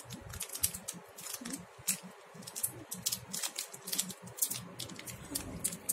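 Crinkly plastic sweet wrapper being twisted and pulled open by hand: a steady run of sharp, irregular crackles.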